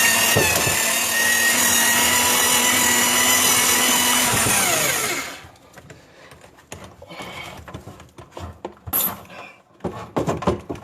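Electric drain-rodding machine motor running steadily with a whine, turning the cable in a clogged 1.5-inch sink drain line. About five seconds in it is switched off and winds down. Quieter clatter and knocks follow as the cable and machine are handled.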